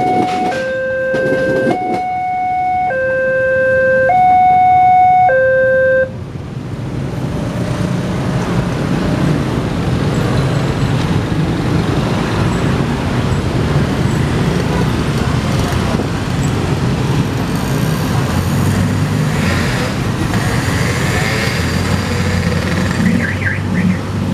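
Railway level-crossing warning alarm from a horn loudspeaker, sounding a loud electronic two-note signal that alternates between a low and a higher note about once a second, then cuts off about six seconds in as the crossing clears. After that comes steady road traffic noise from motorcycles and cars moving over the reopened crossing.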